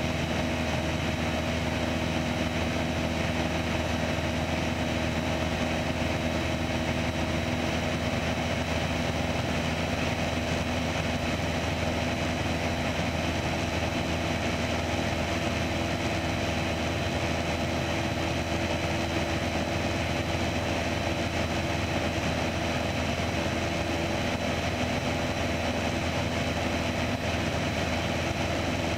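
Piper PA-28 Archer's four-cylinder Lycoming engine and propeller running steadily at cruise power, heard inside the cabin.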